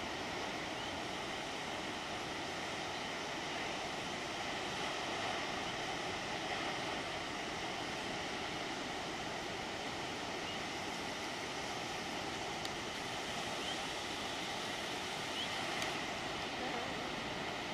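Steady wash of ocean surf breaking and rolling in.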